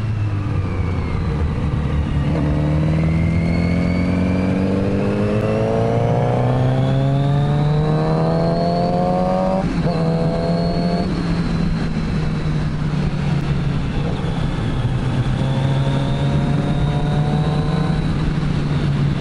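Kawasaki Z900RS's inline-four engine, breathing through an aftermarket full exhaust, pulling up through the revs under acceleration for several seconds. An upshift comes about ten seconds in, then it runs steadily before climbing gently again.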